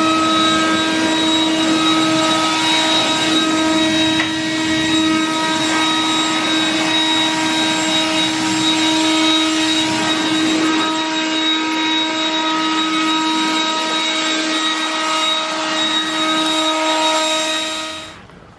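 Leaf blower spinning up with a rising whine, then running steadily at full speed while clearing debris out of a box gutter; it cuts off near the end.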